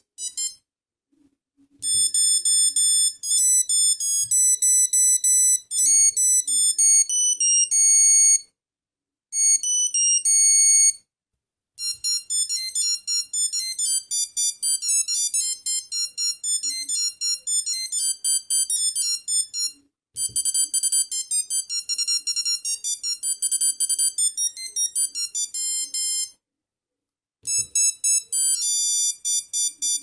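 Ericsson T39 mobile phone playing its built-in ringtone melodies through its small speaker: high electronic beep-tone tunes, each previewed briefly, then stopped and replaced by the next. A soft click comes at each restart.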